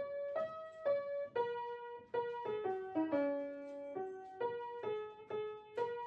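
Background music: a simple, slow piano melody played one note at a time, each note struck and left to fade.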